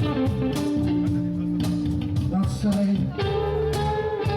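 Live rock band playing an instrumental passage: held, sustained guitar notes over bass and steady drum hits, with no vocals.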